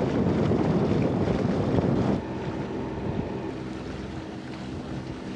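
Wind buffeting the microphone over the steady drone of a catamaran's engine motoring along. About two seconds in the wind roar drops away, leaving a quieter, even engine hum and the wash of water.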